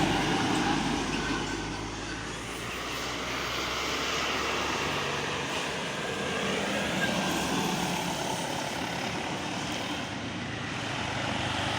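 Buses and other road traffic going by: steady engine and tyre noise that swells and eases a few times as vehicles pass.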